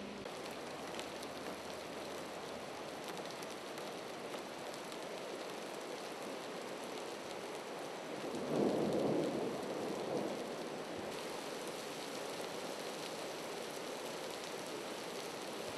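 Heavy rain pouring onto pavement and parked cars, a steady hiss with a louder swell lasting a second or two about halfway through.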